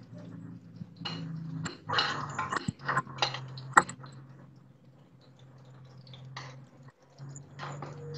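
A spoon clinks and scrapes against steel bowls and a small frying pan in a run of irregular taps and rattles, with one sharp tap near the middle, over a low steady hum.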